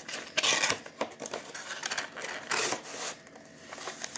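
Cardboard box and packaging being handled and pried open, rustling and scraping in a few short bursts.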